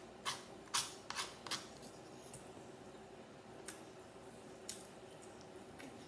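Close-up eating sounds: a quick run of about five crisp mouth smacks and clicks in the first second and a half, then two more single ones.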